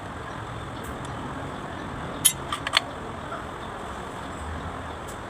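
Three or four sharp metallic clinks a little over two seconds in, like tools knocking on metal, over a steady low hum.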